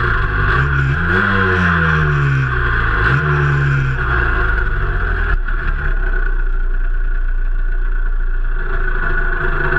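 Cagiva Mito's 125 cc two-stroke single-cylinder engine, revved up about a second in and allowed to fall back, with a second short blip, then settling to a steady idle about halfway through.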